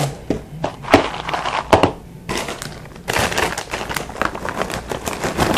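A crinkly Flamin' Hot Crunchy Cheetos bag being handled while the crunchy snacks are poured into a bowl: scattered crackles, thicker and more continuous about three seconds in.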